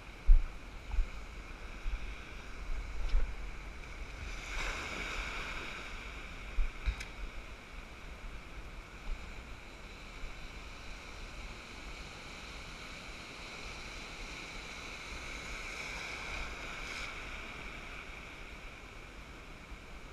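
Sea surf washing through shallow water, swelling twice as waves come in, with a few short low thumps on the microphone in the first seconds.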